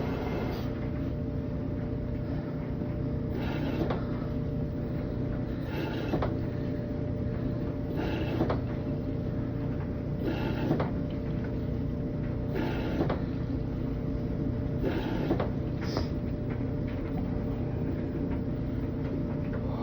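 Washing machine running: a steady motor hum, with a louder swish about every two seconds as the drum turns the load.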